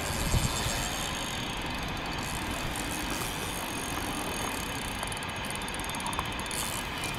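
Steady outdoor background noise, a low rumble with hiss, with a short low thump near the start.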